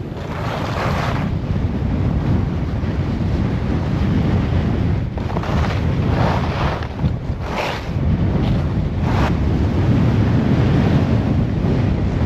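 Strong wind buffeting the microphone during a downhill ski run, with a steady low rumble. Several hissing swells, one near the start and a cluster in the middle, fit ski edges scraping across groomed snow in turns.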